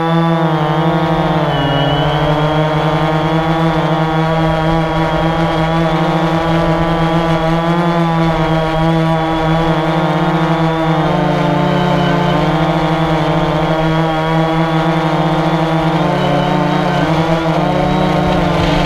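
AirDog quadcopter's electric motors and propellers running in flight, heard close-up from the camera on the drone's gimbal: a loud, steady buzzing whine whose pitch wavers slightly as the motors adjust.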